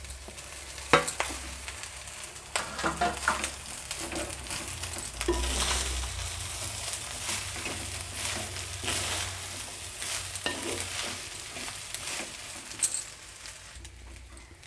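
Cooked rice being stirred into a sizzling garlic, shallot and curry-leaf tempering in a pan, with irregular scraping strokes and knocks of the stirring utensil against the pan.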